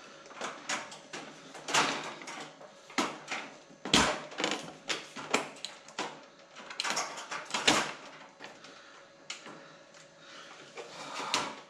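Dell server chassis being worked onto Dell ReadyRails sliding rack rails: irregular metal scrapes, clicks and clunks as the server's inner rails are pushed and shifted against rails that are just barely out of line, with the loudest knocks about two, four and eight seconds in.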